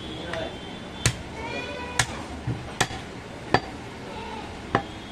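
Heavy butcher's knife chopping goat meat on a wooden stump block: about five sharp chops, roughly one a second, at an uneven pace, with voices murmuring in the background.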